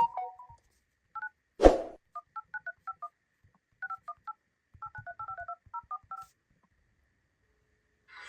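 Phone keypad touch tones as a number is dialed: a string of short two-note beeps in quick groups, with a sharp thump about a second and a half in.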